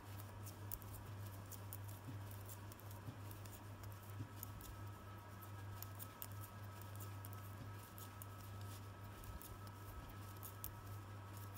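Metal knitting needles clicking faintly and irregularly as stitches are knitted by hand, over a steady low electrical hum.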